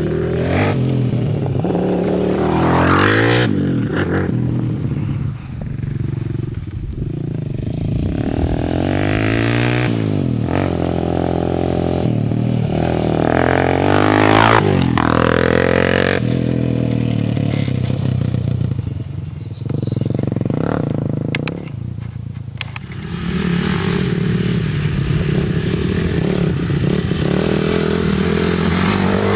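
Four-wheeler (ATV) engine being ridden, revving up and falling back again and again as the throttle opens and closes and gears change, with brief drops in revs about five seconds in and again past the middle.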